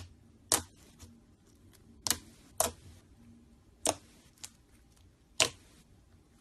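Slime being pressed and stretched by hand, letting out five sharp pops spread over the few seconds.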